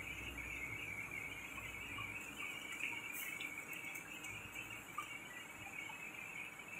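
Large lathe facing a big metal flange: the cutting tool on the spinning face makes a steady high-pitched hiss, over a low machine hum that fades during the first couple of seconds.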